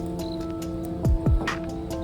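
Background music: sustained chords, with two deep drum hits about a second in.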